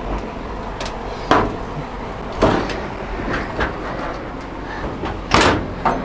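Bare steel door of a 1956 VW Beetle being swung and pushed into place on hidden hinges: a string of separate metallic knocks and clunks, the loudest about five and a half seconds in, over a steady low rumble.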